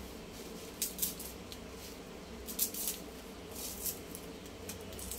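Dry onion skin being peeled and scraped against the curved iron blade of a boti: several short, crisp rasps in small clusters.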